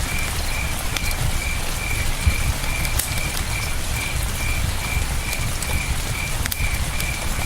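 Campfire crackling with scattered sharp pops over a steady rush of river water, while a cricket chirps in an even pulse, a little over two chirps a second.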